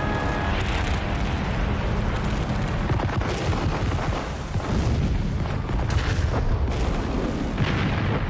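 Battle sounds: a constant low rumble of bombardment with several sharp explosions and gunfire bursts spread through it. An air-raid siren fades out in the first moments.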